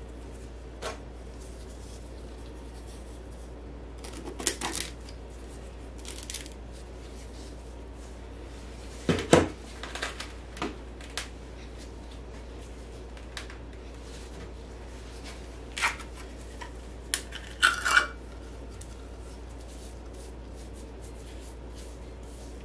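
A plastic heart-shaped bath-bomb mold knocking and scraping against a stainless steel mixing bowl as powdery bath-bomb mixture is scooped into it, in scattered short clinks and scrapes. The loudest knock comes about nine seconds in, with a few more around sixteen to eighteen seconds.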